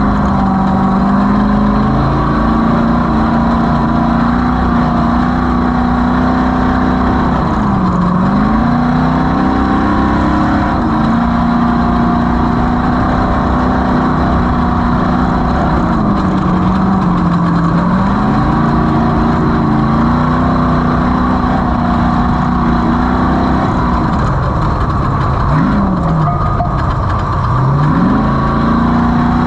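Off-road race vehicle's engine running hard at a steady pitch, over heavy wind and terrain noise. The engine note falls away and climbs back three times as the throttle is eased off and reapplied: about a quarter of the way in, near the middle, and more deeply near the end.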